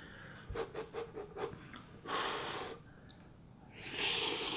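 A person eating spicy instant noodles: a few short clicks early, then loud breathy slurps and heavy breaths, about two seconds in and again near the end, panting against the chili heat.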